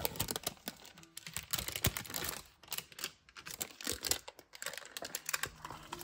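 Baking paper crackling and rustling in quick, irregular crinkles as it is peeled away from a freshly baked sponge cake.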